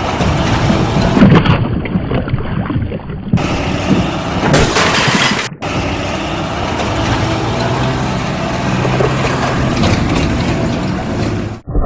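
Vehicle motors running, in several segments spliced together with abrupt cuts, and a steadier low hum from a motor in the second half.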